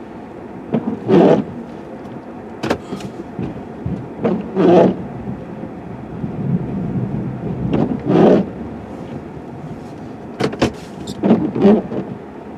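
Plow truck's engine running, heard from inside the cab, with about six short loud clunks and bangs as the plow rams heavy packed snow; the engine rises for a couple of seconds in the middle.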